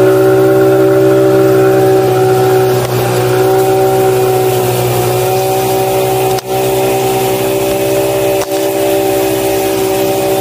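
Small outboard motor running steadily at full throttle, pulling an inflatable boat that tows a second one, with wind and water rushing beneath. The sound dips briefly twice in the second half.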